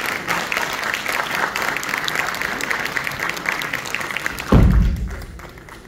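Audience applauding, a dense spatter of clapping that dies away near the end. A loud low thump about four and a half seconds in.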